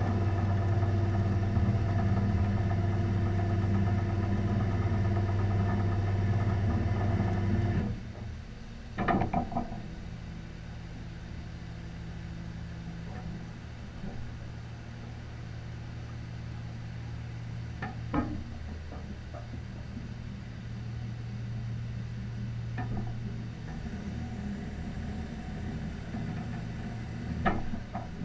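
Vehicle engine idling steadily, then dropping abruptly to a quieter steady hum about eight seconds in. A few sharp knocks or clanks sound over the hum.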